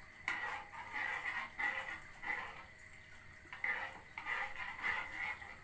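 Metal teaspoon stirring rice milk in a small saucepan as it warms over low heat, scraping and swishing against the pan in quick repeated strokes, about two or three a second, with a short lull in the middle.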